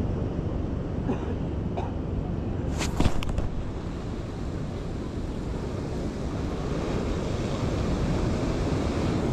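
Steady wind noise on the microphone over the rush of surf below, with a few light knocks and one sharp knock about three seconds in.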